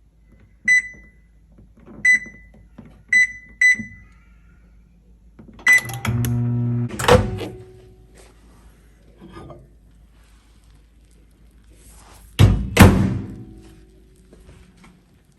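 Microwave oven: four short high keypad beeps as buttons are pressed, then a click and the oven's low hum for about a second, ending in a loud clunk. Two more loud clunks come near the end.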